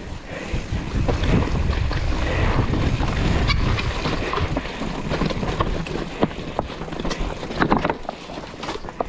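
Mountain bike descending a rough dirt and rock trail: wind buffeting the microphone and the tyres and frame rattling over the ground, with many sharp clicks and knocks from the bike hitting rocks and roots. The rumble is heaviest in the first few seconds.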